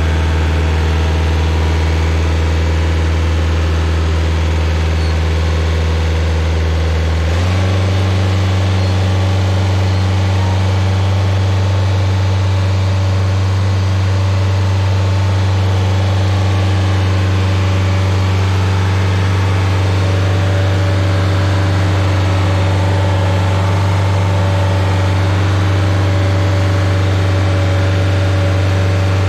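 Rayco Super RG50 stump grinder's engine running steadily, its pitch stepping up slightly about seven seconds in.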